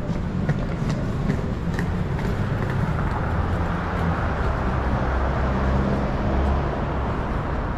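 Road traffic on a city street: a steady low engine rumble, with tyre and engine noise from a passing vehicle swelling through the middle and easing off near the end.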